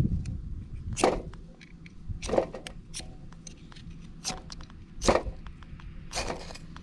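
Handling noises: about five short scrapes and rustles, roughly one every second or so, with faint small clicks between them.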